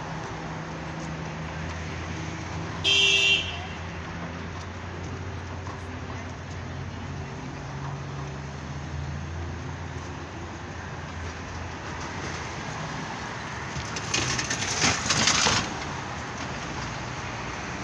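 City street traffic with a steady low vehicle engine hum. A short car-horn toot sounds about three seconds in, and a loud hiss lasting about a second and a half comes near the end.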